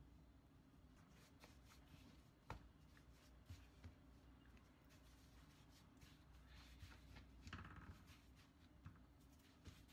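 Faint handling sounds of dough being rolled up and rolled under the palms on a plastic cutting board: soft rustles and scuffs, with a sharp tap about two and a half seconds in, over a low steady hum.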